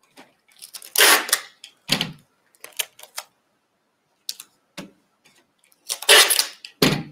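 Packing tape pulled off a tabletop tape dispenser and torn off, in short bursts, loudest about a second in and again about six seconds in, with paper pattern pieces rustling and being pressed flat between.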